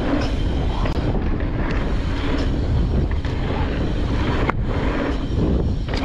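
Wind buffeting the microphone over the rumble of a mountain bike rolling fast along a dirt trail, with a few sharp knocks and rattles from the bike.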